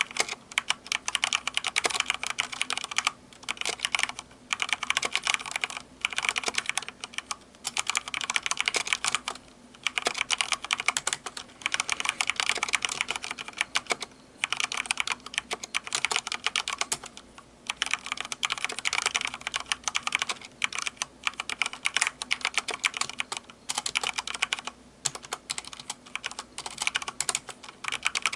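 Fast typing on a Corsair K70 Rapidfire mechanical keyboard with linear Cherry MX Speed switches: rapid runs of key clicks broken by short pauses every second or two.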